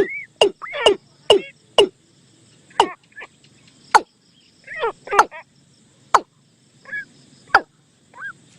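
Bird calls from a decoy recording used to lure birds for trapping: sharp notes that fall steeply in pitch, repeated irregularly about one or two a second, mixed with a few arched, rippling notes.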